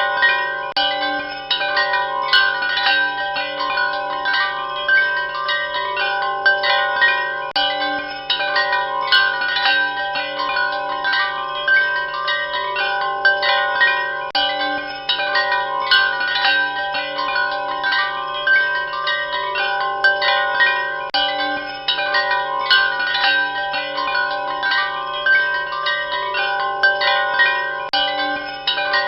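Wind chimes ringing continuously, many metal tones struck irregularly and overlapping, with a steady low hum beneath.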